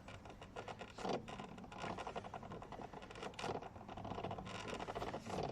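Semi-trailer landing gear being turned by hand with its crank, the drive's self-locking worm gear bypassed. It gives an irregular run of metallic clicking and scraping that swells and fades several times.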